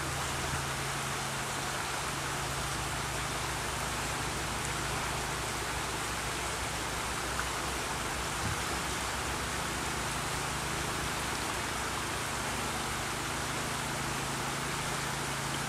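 River Wye rushing over shallow rapids: a steady, even rush of water, with a low steady hum underneath.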